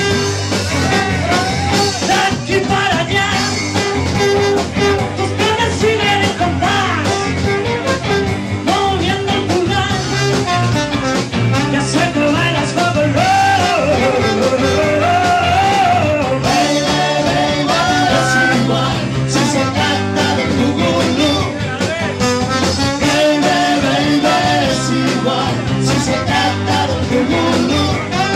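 Live band playing a sixties-style song from a medley, with trombone, electric guitar and singing.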